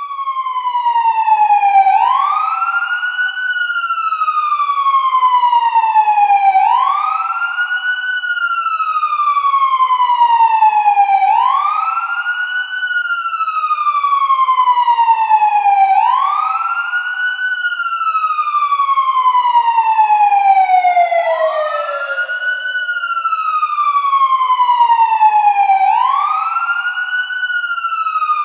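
Loud police siren sounding a slow wail. Each cycle rises quickly in pitch, then falls slowly, repeating about every four and a half seconds.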